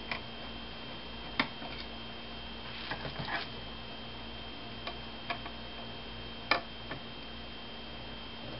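Scattered small clicks and taps from a screwdriver and tiny screws as the corner screws of a laptop LCD panel are taken out, the sharpest about a second and a half in and again past six seconds, over a steady faint electrical hum.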